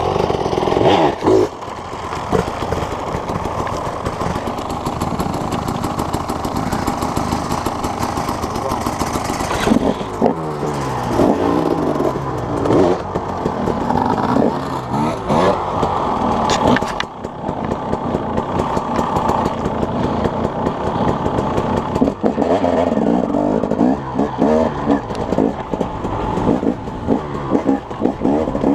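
An engine running and revving, its pitch rising and falling repeatedly.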